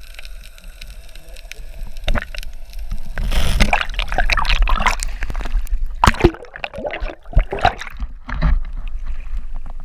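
Muffled water sloshing and gurgling over an action camera's waterproof housing as it moves underwater and is lifted out. It grows louder about three seconds in, and several sharp knocks and splashes follow between about six and eight and a half seconds in.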